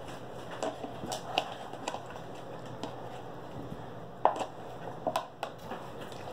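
Homemade glue slime being stretched and worked by hand over a plastic tub, giving scattered small sticky clicks and squelches, with a few sharper ones about four to five and a half seconds in.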